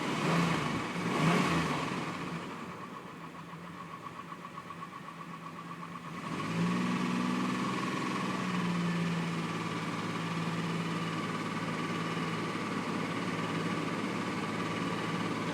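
2003 Ford Explorer's 4.0 SOHC V6 running after a rear timing chain tensioner and cassette replacement: two brief revs near the start, a steady idle, then the revs raised about six seconds in and easing back down. The engine is quiet, with a slight roughness that the owner has not yet traced.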